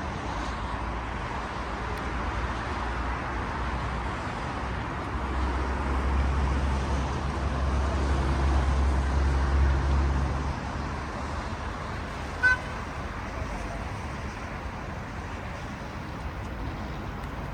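City street traffic running steadily, with a heavy vehicle's low rumble swelling as it passes about five to ten seconds in. A single short, high beep sounds about twelve seconds in.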